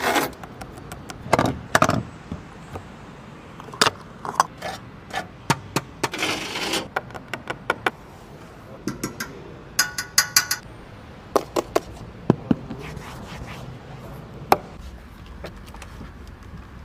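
Hands tapping, knocking and rubbing on a Bugatti's parts (the horseshoe grille, the rear light bar and bodywork, the steering wheel): a string of sharp clicks and taps, with a short scrape about six seconds in and a quick run of ringing metallic clicks about ten seconds in.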